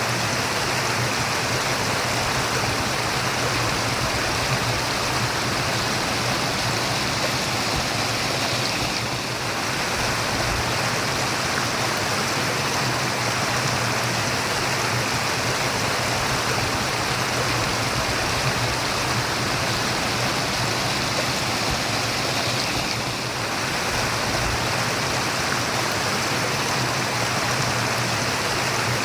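Running water murmuring steadily, like a babbling stream.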